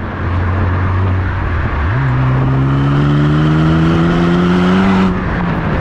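Honda Civic Type R FL5's turbocharged four-cylinder heard at the tailpipes through an R1 Titan titanium exhaust on the move. The engine note holds steady, jumps up in pitch about two seconds in and climbs as the car pulls, then eases off near the end, with wind and road noise underneath.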